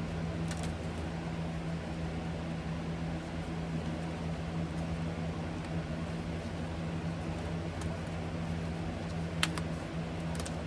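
Steady low-pitched mechanical hum of a running machine, with a few light clicks and one sharper click about nine seconds in.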